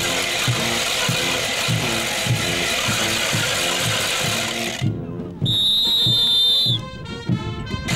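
Wooden matracas (hand ratchets) swung by the dancers make a dense, continuous rattle over band music with a steady drumbeat about twice a second. The rattle stops about five seconds in, and a long, high, steady whistle blast follows.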